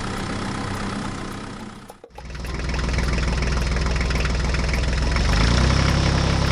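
Small engine running steadily. It fades out about two seconds in and comes back louder and lower, growing louder again near the end.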